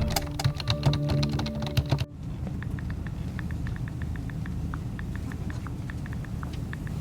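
Rapid clicking, like typing on a keyboard, with a few held musical notes, cut off suddenly about two seconds in; then a steady low hum with faint scattered ticks.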